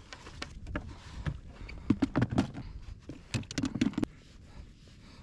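Fishing reels and rigs being taken off the rods and stowed in a kayak's tackle pod: a run of sharp knocks and clicks, in one cluster about two seconds in and another about three and a half seconds in.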